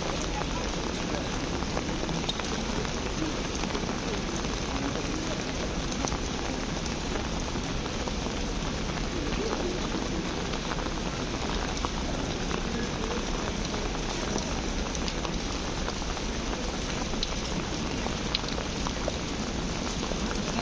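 Steady rain falling on the street, an even patter with scattered faint drop ticks.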